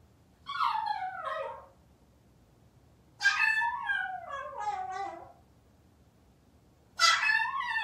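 Maltese dog whining: three long, drawn-out whimpers that each slide down in pitch. It is left home alone and whining at the front door for its family, a sign of separation distress.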